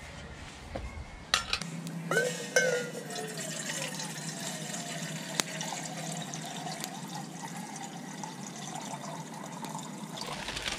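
Water poured from a metal bottle into a metal pot on a small wood-burning camp stove, a steady stream filling the pot for about eight seconds. There are a few sharper splashes as the pour begins.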